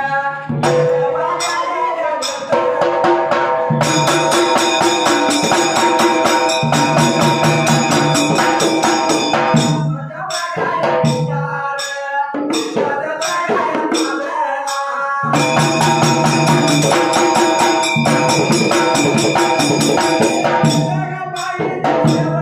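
Marathi folk ovi music: a dhol and a small hand drum beat with clashing hand cymbals, alternating with men singing. Full drum-and-cymbal passages run from about 4 to 10 seconds in and again from about 15 to 20 seconds in, with singing between them.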